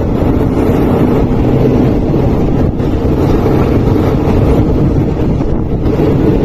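Passenger train running along the line, heard through an open carriage window: a steady rumble of the carriage with wind rushing over the microphone.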